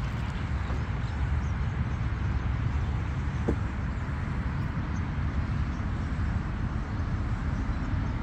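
Steady wind rumbling and buffeting on the microphone outdoors.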